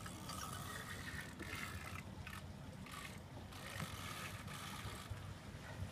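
Fishing reel buzzing with a ratcheting sound in three spells of one to two seconds each, under the pull of a heavy fish.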